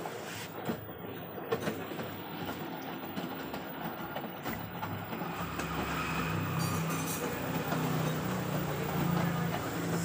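LG washing machine's direct-drive motor and drum running, a steady mechanical rumble with a low hum that grows a little louder over the second half.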